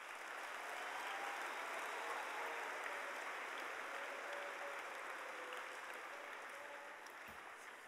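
Audience applauding, swelling up at the start and slowly dying away over several seconds.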